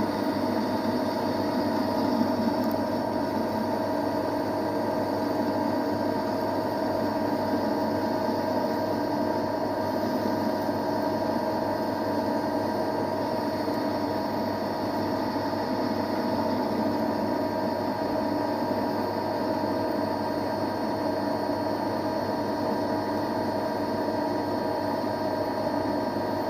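Metal lathe running steadily under power crossfeed as the cutting tool takes a cut, with a constant machine hum and no squealing or chatter. The cut is going cleanly, the tool rolling the chip up nicely.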